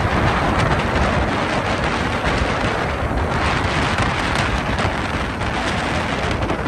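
Wind buffeting the microphone of a camera on a moving motorcycle: a steady, dense rush with a low rumble from the bike and road underneath.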